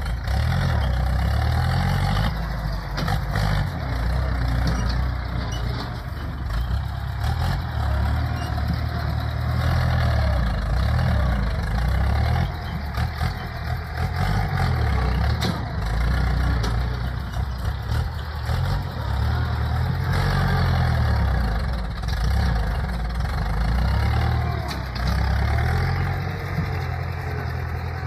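Farm tractor's diesel engine working a front dozer blade, running hard with its pitch rising and falling over and over as it labours and eases while pushing soil.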